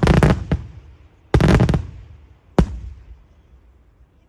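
Daytime fireworks going off: three loud bangs and a fainter one within about three seconds, each followed by a rolling echo that dies away near the end.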